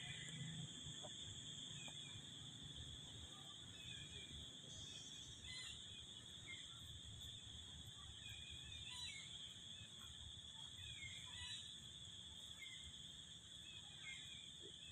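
Faint, steady high-pitched insect drone, with scattered faint short chirps over it.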